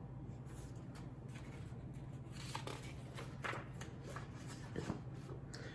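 Faint paper rustling and handling of a picture book's pages, most likely a page being turned, over a steady low hum.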